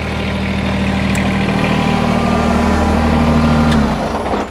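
Kubota BX2380 compact tractor's three-cylinder diesel engine idling steadily, then shut off about four seconds in and stopping abruptly.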